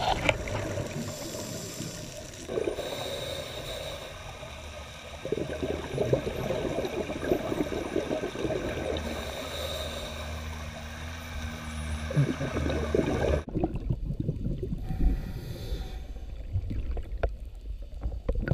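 Underwater sound through a camera housing: scuba divers' exhaled regulator bubbles gurgling and crackling, with faint high gliding whistles from dolphins. About two-thirds through, the high part drops away abruptly and only the low bubbling remains.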